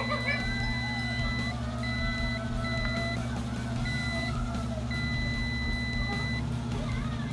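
Digital multimeter's continuity buzzer giving a steady high beep in several broken stretches as the probe makes and loses contact on a graphics card's power rail. The beep means near-zero resistance: the rail is shorted. A steady low hum runs underneath.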